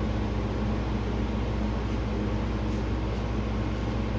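Steady, even mechanical hum with a low drone, running unchanged throughout.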